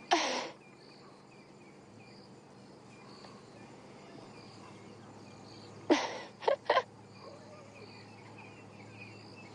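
Faint insects chirping over a low steady hum, broken by a short breathy burst at the start and three more short bursts in quick succession about six seconds in.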